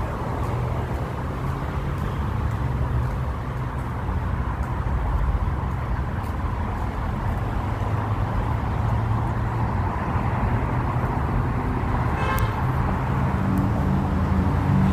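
City road traffic noise: a steady low engine and tyre rumble, with a brief horn toot about twelve seconds in and a louder low engine hum building near the end.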